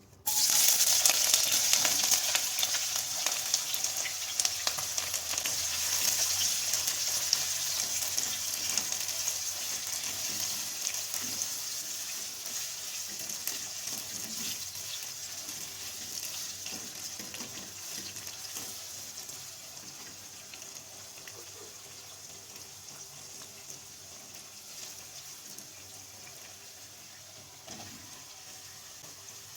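Food sizzling and crackling in hot oil in a pan, starting suddenly as it goes in and slowly dying down.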